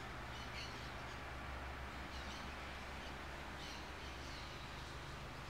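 Quiet room tone: a steady low hum and hiss, with a few faint, short high-pitched chirps scattered through it.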